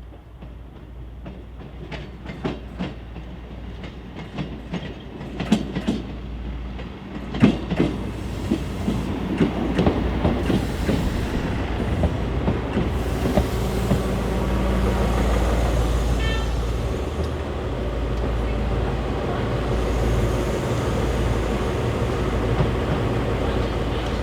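Metre-gauge diesel multiple unit on the Vouga line, wheels clicking over rail joints as its rumble builds up over the first ten seconds or so and then holds steady.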